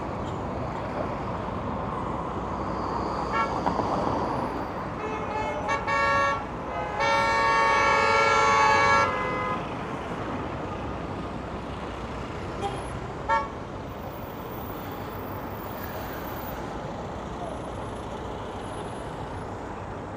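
A vehicle horn sounding: a couple of short toots, then one long blast of about two seconds, then two more short toots a few seconds later. Steady city traffic noise runs underneath.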